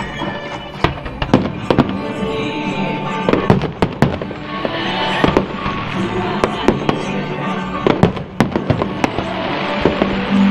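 Aerial fireworks going off in a dense run of sharp bangs, several a second, with music playing steadily underneath.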